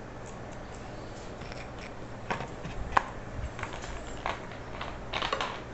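Scattered sharp clicks and crackles from a plastic soda bottle being handled and its cap worked, the loudest click about three seconds in, with a short crackling stretch near the end.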